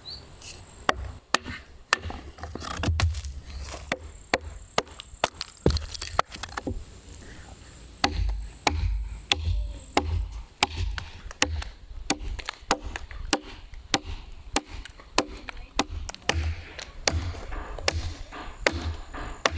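Hand tool chopping into green wood with repeated sharp knocks, roughly two a second, each with a dull thud beneath.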